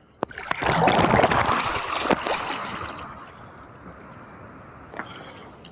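A small ocean wave washing over a swimmer at the surface, water splashing right at the microphone: a loud rush that peaks about a second in and dies away over the next two seconds, with a few sharp clicks.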